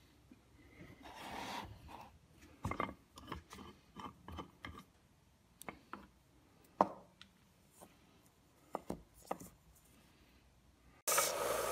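Faint handling sounds: a wooden block knocking and sliding against a metal drill-press vise as it is taken out, a scattered series of small clicks and knocks. Near the end a 1-inch belt (strip) sander starts up abruptly with a steady, much louder running noise.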